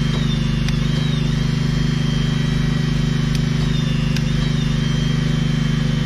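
Hydraulic torque wrench's power pack running steadily with a low pulsing drone and a thin high whine that wavers as the wrench works against a tight bolt. A few sharp clicks come through it, about a second in and twice more near the middle.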